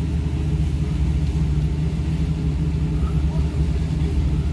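Steady low engine drone with an even hum that holds at one level.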